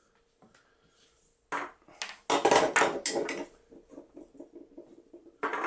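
Plastic parts of a Hasbro Lightsaber Forge toy lightsaber being handled and set down on a wooden tabletop: a few clacks and knocks about a second and a half in, a burst of clatter a little after two seconds, then lighter taps.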